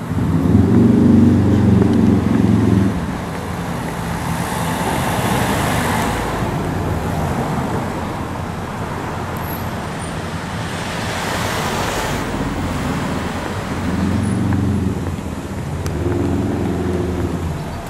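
Road traffic on a town street: cars passing with swells of tyre and engine noise. A low engine hum is loudest for the first three seconds and returns near the end.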